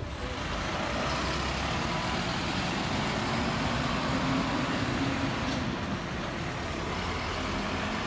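Expedition camper truck's engine running steadily as it drives off, with an even rush of road noise.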